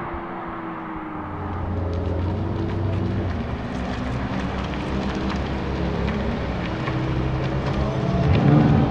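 Ferrari 488 GTB's 3.9-litre twin-turbo V8 running at low revs close by as the car moves slowly, with a brief louder swell near the end. Faint, fading engine tones of cars farther off come first.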